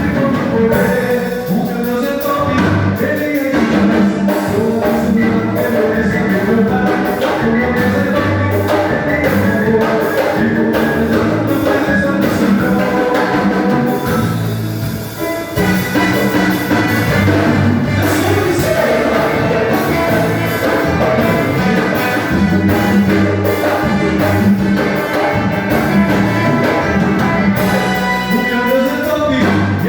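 A band rehearsing a song, with a drum kit keeping the beat under the other instruments and singing. The music thins out briefly about halfway through, then picks up again.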